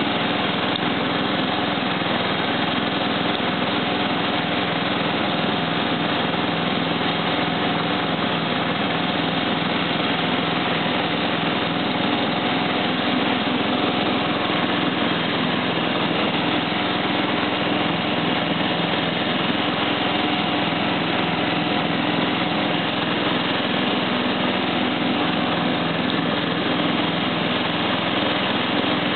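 Simplicity 4211 lawn tractor's engine running steadily while the tractor drives, an even hum with no change in speed.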